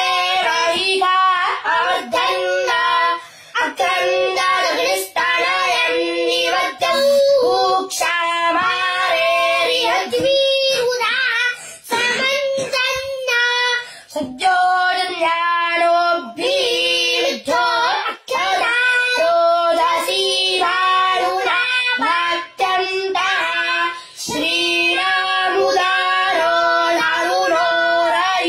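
A young boy's high voice chanting Vedic mantras, a steady recitation that moves between a few held pitch levels, with brief breath pauses every few seconds.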